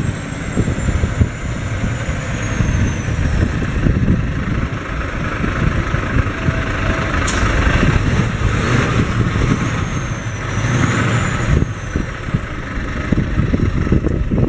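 Cummins ISX 14.9-litre straight-six diesel of a semi truck running, with a faint high whistle that slides down in pitch over the first few seconds and rises and falls again near the end, and a sharp click about halfway through.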